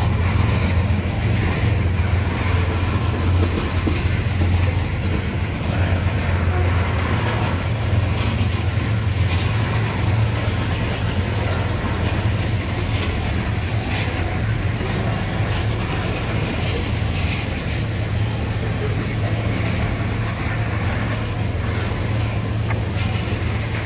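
Norfolk Southern freight train rolling past: a steady, loud rumble of wheels on the rails with faint rattling and clicking from the cars.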